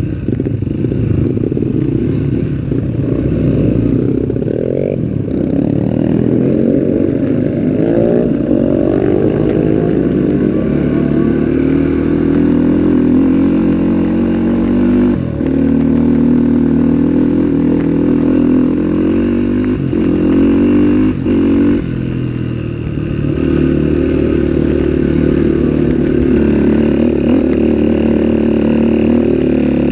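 Off-road trail motorcycle engine running under changing throttle, its pitch rising and falling as it revs, with a few brief drops in revs.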